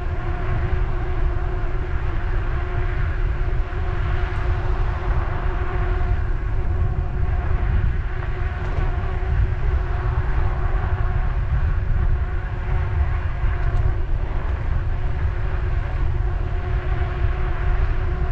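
Wind rumbling on the microphone of a camera on a moving bicycle, with a steady hum over it and no breaks.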